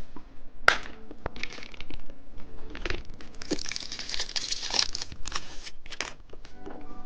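Plastic candy wrapper crinkling and tearing, with sharp crackles throughout and the densest crinkling around the middle.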